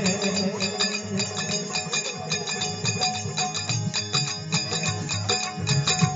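Instrumental passage of a Rajasthani desi bhajan: fast, steady jingling hand percussion over a low drum beat, with no singing.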